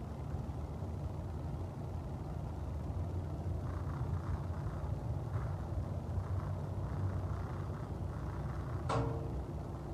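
Steady low outdoor rumble, with a single metallic clang that rings briefly about nine seconds in.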